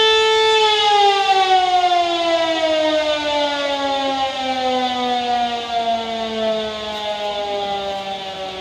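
Siren sounding a start signal: a steady held tone that begins to wind down about half a second in, its pitch falling slowly and evenly as it grows quieter.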